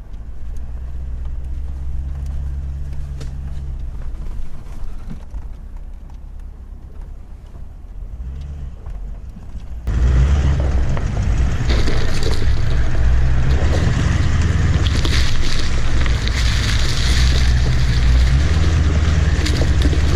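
Toyota LandCruiser V8 turbo-diesel 4x4 driving on a bush track. A steady low engine hum runs through the first half; about halfway through the sound abruptly becomes much louder, with heavy engine rumble, tyre and wind noise, and scattered knocks.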